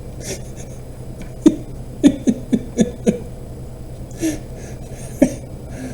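A person coughing in short, sharp coughs, about seven in all, five of them in quick succession around two to three seconds in, over a steady low electrical hum.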